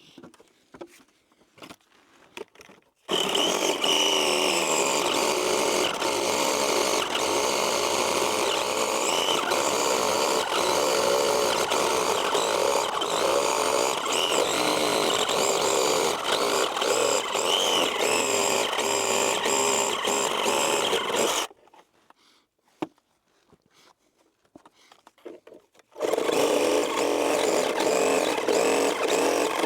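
Chainsaw running and cutting through wooden framing timbers. It starts about three seconds in, stops abruptly about two-thirds of the way through, and starts again near the end.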